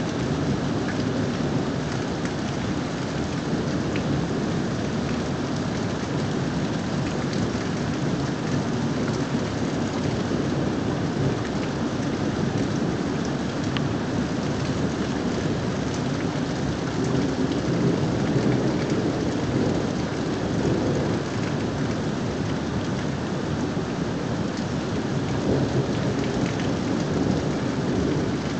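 Thunderstorm rain falling steadily, with scattered drops ticking near the microphone. A low thunder rumble swells slightly about two-thirds of the way through.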